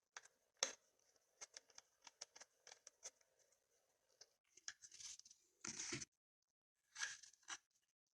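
Faint, quick clicks and ticks of small screws being driven into a laptop hard drive's side mounts, then louder rustling handling noise twice in the second half.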